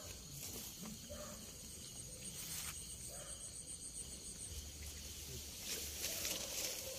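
Night insects chirring steadily, with a high pulsing trill for a couple of seconds in the middle. Brief rustles come and go, most plainly about two and a half and six seconds in.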